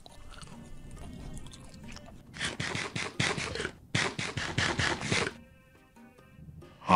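Background music, then two bursts of rapid rasping pulses, each a little over a second long, starting about two and a half seconds in.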